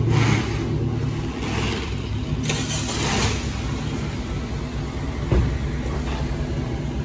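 A car engine running with a steady low hum, surging a few times in the first three seconds, with a single knock about five seconds in.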